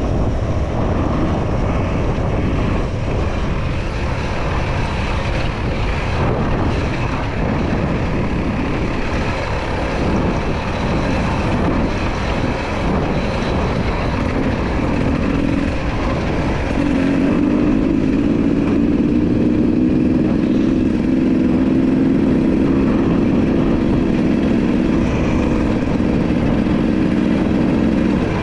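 Enduro motorcycle being ridden: the engine runs under a dense, rough rush of noise, and from a little past halfway it settles into a steadier, slightly louder engine note.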